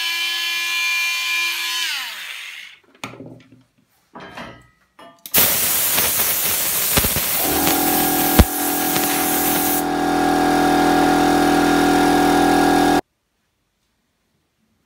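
Handheld high-speed rotary carving tool working into the wood, its motor whine dipping in pitch under load and then dying away about two seconds in. About five seconds in a louder rotary tool with a spinning sanding head starts on the wood, a coarse grinding with a steady whine and one sharp click, and cuts off abruptly about thirteen seconds in.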